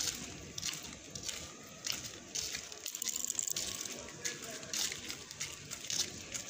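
Irregular scuffing and rustling, roughly two a second, from a phone being carried by someone walking on pavement, with faint voices in the background.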